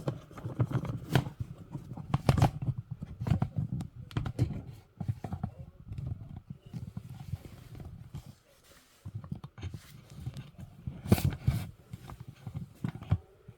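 Irregular plastic clicks, knocks and scrapes as an RC car's plastic body shell is handled and fitted onto the chassis, with a brief lull past the middle and a louder cluster of knocks near the end.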